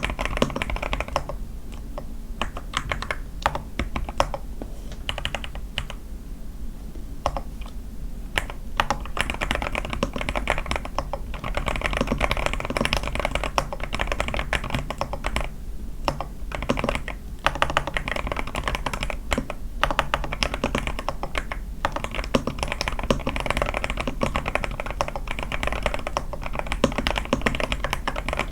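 Typing on an A81 mechanical keyboard with lubed Sky switches, tape-modded and with lubed stabilisers: a steady run of fast key clacks with a couple of short lulls.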